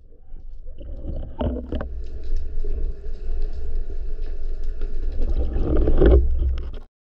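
Water rushing and rumbling over an underwater action camera as a spearfisher swims up to the surface with a speared sea bass. Two sharp clicks come about a second and a half in. The sound grows louder near the end, then cuts off suddenly.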